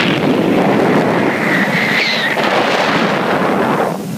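Wind buffeting the microphone on a moving motorboat, a steady loud rush with the engine and water noise beneath it.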